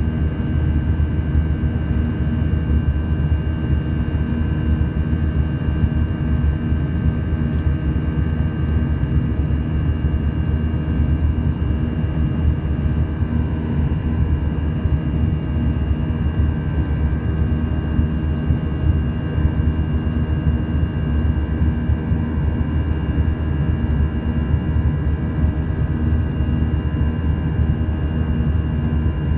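Airbus A320 turbofan engines at climb thrust heard from inside the cabin by the wing: a steady low rumble under a buzzsaw drone, many steady tones stacked together, from the engine fan blade tips running faster than sound.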